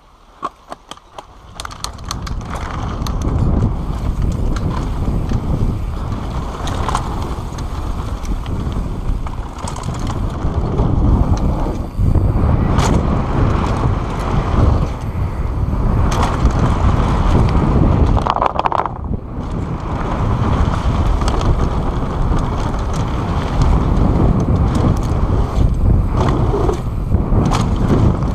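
Mountain bike running down a dirt trail at speed: wind on the microphone and tyres rolling and rattling over dirt and bumps, with occasional knocks. A few sharp clicks open it, then the noise builds over the first couple of seconds as speed picks up and stays loud.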